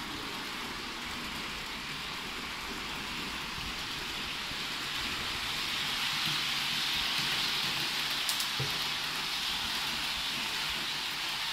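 Model electric train running on its track: a steady hissing whir that grows louder about five seconds in as the train comes close, with one light click a little after eight seconds.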